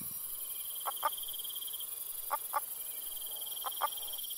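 Western spadefoot toad (Pelobates cultripes) calling: soft clucking notes in pairs, three pairs spaced about a second and a half apart, over a steady high trill in the background.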